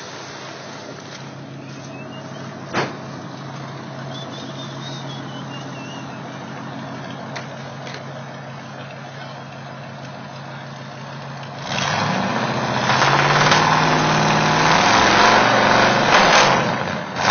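Old pickup truck engine idling steadily, with a single sharp click about three seconds in. About twelve seconds in the engine is revved and runs much louder through its loud exhaust.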